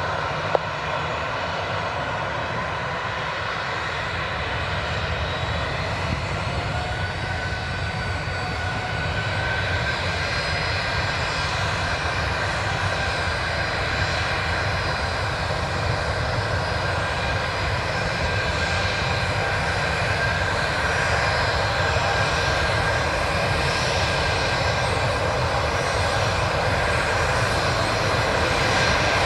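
The CFM56-7B jet engines of a Boeing 737-800 running at low thrust as the airliner taxis onto the runway: a steady whine and rush that slowly grows louder, with a higher whine coming in about seven seconds in. A short sharp click sounds about half a second in.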